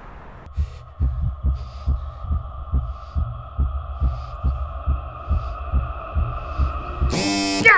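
Dramatic heartbeat sound effect, slow low thumps about twice a second, under a sustained high drone. A loud horn-like blare cuts in near the end.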